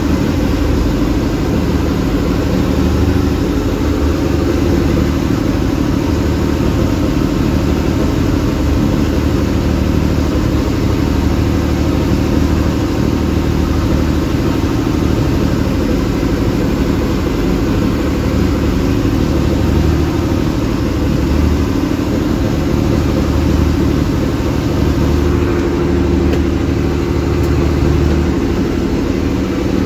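Fishing boat's engine running steadily while the boat is under way, with wash and wind noise.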